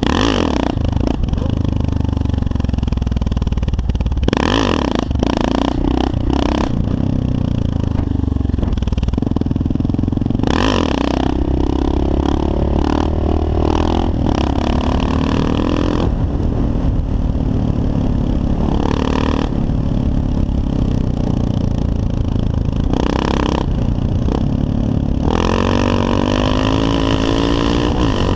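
Kawasaki KLR650's single-cylinder four-stroke engine running under throttle on the move, including through a wheelie. The revs climb about ten seconds in and again near the end. Wind buffets the microphone in gusts several times.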